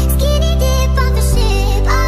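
Background music: a melody line over sustained bass notes that change about every second and a half.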